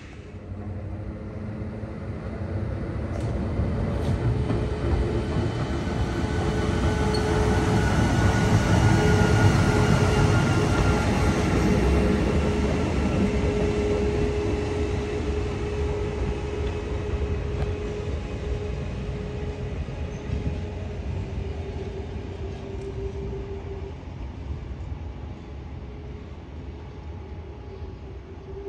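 Historic SBB electric train passing on the tracks: a rumble with a steady motor whine that builds to its loudest about ten seconds in, then slowly fades away.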